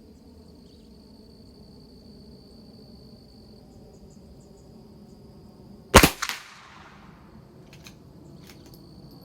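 A single shot from a .22 LR bolt-action rifle firing SK Long Range Match ammunition, about six seconds in: one sharp crack with a short trailing echo. It is followed by a couple of faint clicks.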